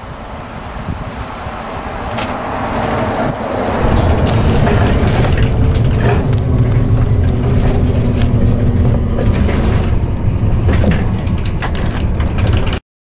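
A train passing close by: a low rumble that grows louder over the first few seconds, then runs loud with scattered clicks and knocks from the wheels and running gear. It cuts off abruptly near the end.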